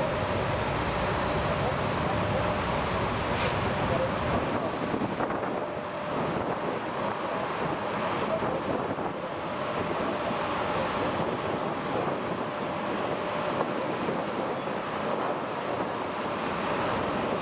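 Passenger train coaches rolling slowly into the station: a steady rumble of wheels on the rails, with a faint steady tone running above it.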